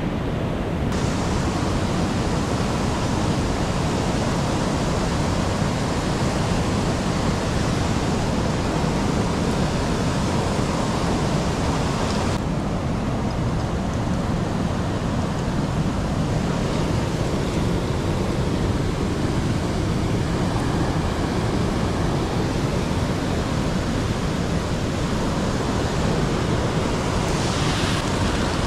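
Steady rush of a jungle stream and small waterfall, an even hiss-and-roar of water with no break.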